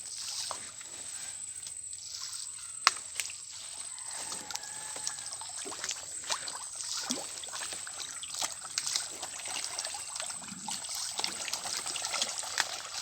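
Shallow pond water being stirred and splashed by hands, with scattered small splashes and trickling drips, and one sharp click about three seconds in.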